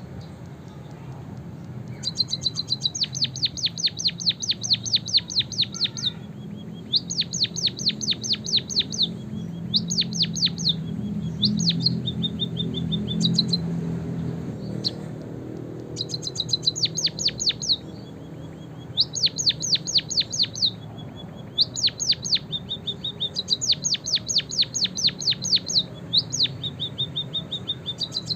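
White-headed munia (emprit kaji) singing a canary-style song: phrases of fast, high, rapidly repeated notes, each a few seconds long with short pauses between, starting about two seconds in. A steady low hum runs underneath.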